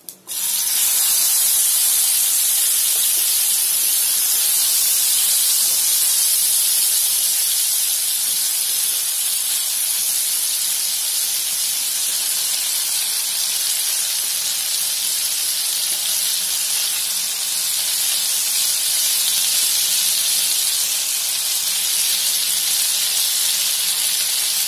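Spiced diced potatoes and curry leaves sizzling in hot sesame oil on a dosa griddle (tawa). The sizzle starts suddenly at the very beginning as the potatoes go into the oil, then holds as a steady, loud hiss.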